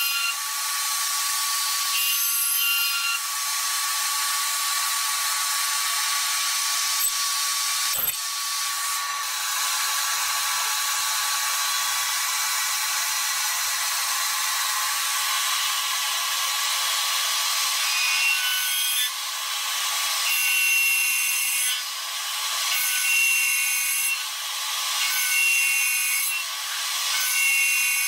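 CNC milling machine's end mill cutting metal turbine blades: a steady hissing cutting noise with a fixed high tone, and one sharp click about eight seconds in. In the second half the cutting noise swells and drops every second or two.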